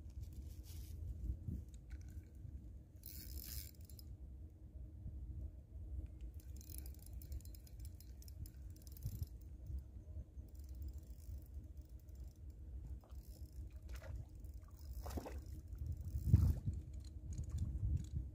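Low outdoor rumble with scattered rustles, scrapes and clicks of handling, and one louder knock about sixteen seconds in.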